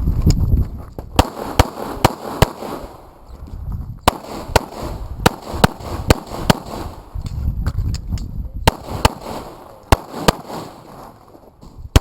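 Handgun shots fired in quick strings during a practical pistol stage: about fifteen sharp reports in three bursts of four, seven and four shots, with short pauses between them and low rumbling handling noise in the pauses.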